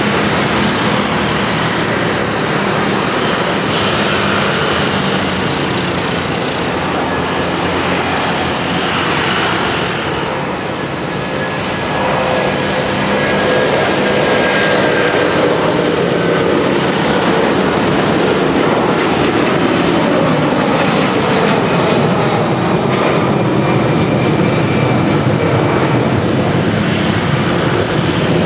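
Twin jet engines of an Airbus A330 at takeoff power: a loud steady rushing noise with whining fan tones, getting louder about twelve seconds in as the airliner lifts off and climbs out.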